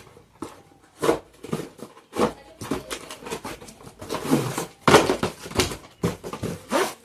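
Irregular handling noises from unboxing a tripod: a run of rustles, taps and clicks of uneven length, some with a short squeak-like bend in pitch.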